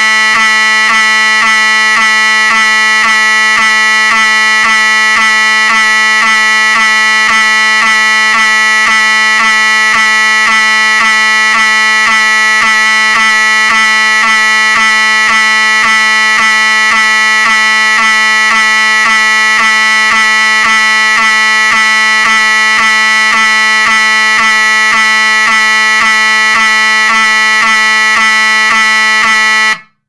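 Wheelock 7002T-24 electromechanical fire alarm horn sounding continuously: a loud, harsh buzzing tone with the series' signature skip about twice a second. Each skip comes as the series-wired xenon strobe flashes and briefly starves the horn of voltage. The horn cuts off suddenly near the end.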